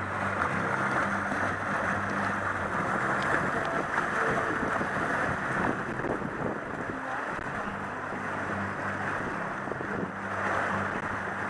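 Wind buffeting the microphone over water rushing along the hull of an F-24 trimaran under way, with a faint low steady hum underneath.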